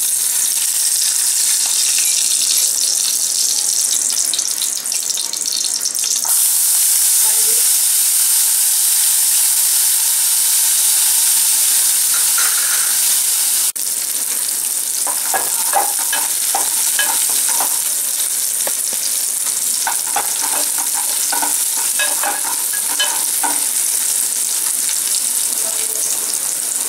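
Butter sizzling in a metal pan as chopped almonds, pistachios and raisins fry in it, a steady high hiss. From about halfway, a spoon stirs the nuts, with short scrapes and clicks against the pan.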